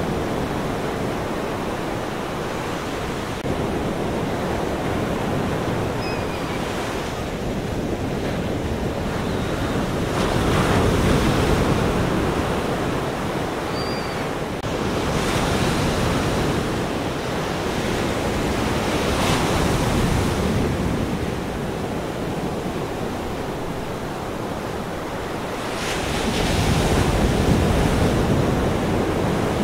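Ocean surf washing and breaking in a steady rush, swelling in slow surges every few seconds, with the biggest surge near the end.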